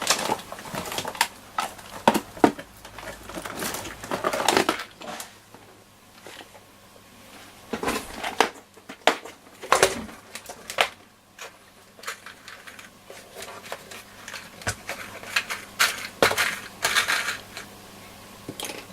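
Irregular rustling, crinkling and small clicks of hands handling heat-shrink sleeving and lengths of hook-up wire on a workbench.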